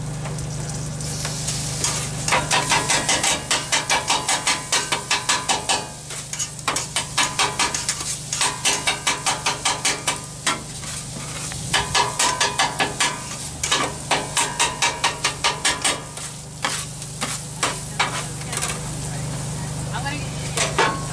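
A metal griddle scraper blade rapidly chopping lamb and peppers against a steel flat-top griddle. It strikes about five times a second in runs broken by short pauses, over steady sizzling of meat frying on the griddle.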